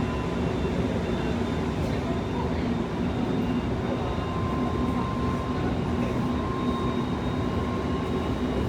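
Running noise of a Senboku Rapid Railway 7000 series electric train, heard from inside the passenger car: a steady rumble with a faint steady hum.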